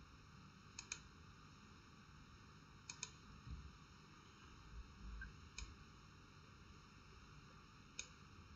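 Faint computer mouse clicks, some single and some in quick pairs, a few seconds apart over near-silent room tone.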